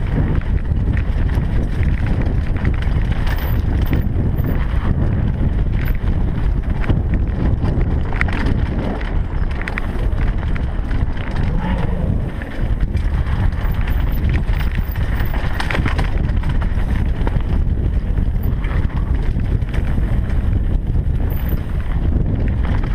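Wind buffeting a GoPro Hero3 Black's microphone over the rattle and clatter of a mountain bike and the crunch of its tyres riding down a rocky dirt singletrack, with a steady rush of noise throughout.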